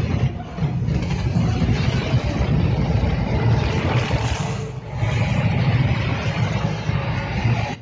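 Film battle sound effects: a loud, dense low rumble of tank engines with a rushing hiss of the dark swarm cloud over it, swelling about four seconds in and cutting off suddenly at the end.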